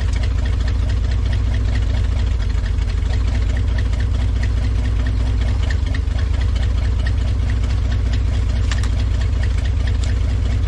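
GMC 401 cubic-inch big-block V6 in a 1960s dump truck, running steadily at an even speed, freshly revived after sitting for 15 years.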